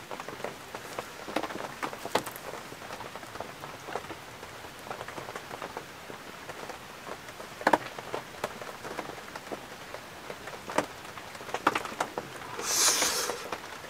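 Steady rain falling on the tent, with scattered short clicks through it. A brief louder rustle comes near the end.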